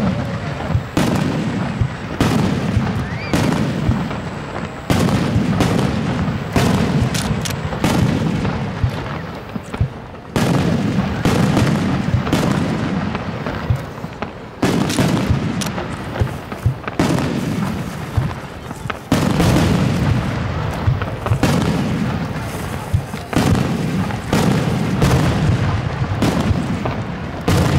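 Aerial fireworks shells bursting one after another, about one every second or two. Each is a sharp bang followed by a low rolling rumble that dies away.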